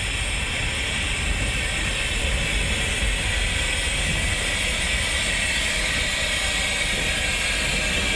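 Sentinel geared steam locomotive giving off a steady hiss of steam over a low rumble.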